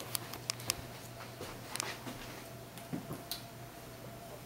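Faint scattered clicks and light taps of playing cards being drawn and handled, over a low steady hum.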